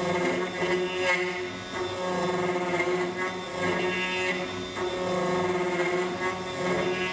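Background instrumental music with long held tones.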